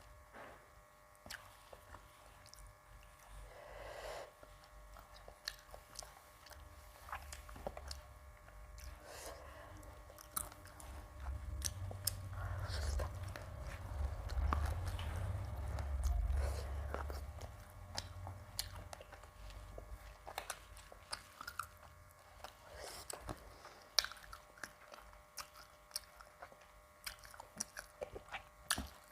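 Close-miked chewing and biting of a meal of rice and curries, with many small wet mouth clicks and smacks. A low rumble swells in the middle.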